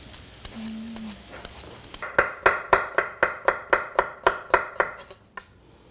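Kitchen knife slicing an oven-roasted beet thinly on a cutting board: about a dozen quick, even strokes, roughly four a second, starting about two seconds in. Before them there is a faint sizzle from a pan of sauce frying on the stove.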